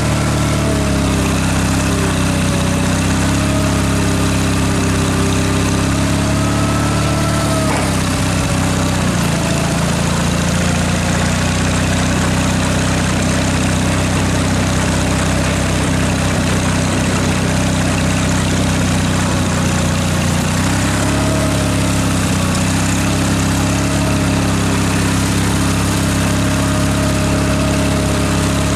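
Ford flathead V8 engine in a tractor idling steadily, its note shifting slightly about eight seconds in and again about twenty seconds in.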